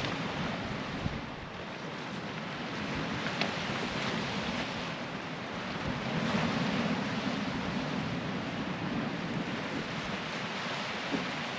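Small waves breaking and washing over a pebble beach, with wind buffeting the microphone; the surf swells a little about six seconds in.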